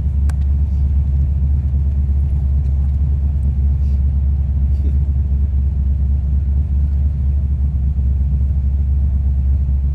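HDT VH Commodore Group 3's Holden V8 heard from inside the cabin, running at a steady, unchanging pace as a deep, even drone.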